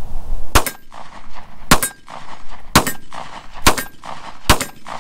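Glock 43 9mm pistol firing five shots about a second apart, each followed by the brief ring of the steel silhouette target being hit.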